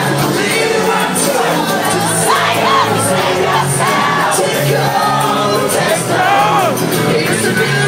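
Live band playing acoustic guitars and drums with sung vocals and crowd voices, recorded through a phone's microphone in the audience.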